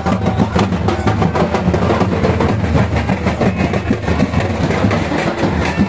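Live folk drumming for a Sadri chain dance: dhol drums beaten in a fast, dense rhythm with a heavy low thud.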